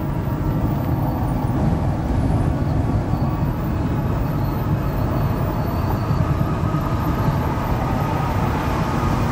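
Kenworth semi-truck heard from inside the cab while cruising: a steady drone of engine, tyre and wind noise with no sudden changes.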